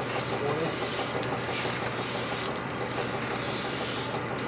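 Honing stone rubbing against a metal bore, with a steady abrasive hiss that eases at the end of each stroke about every second and a half, over a steady motor hum.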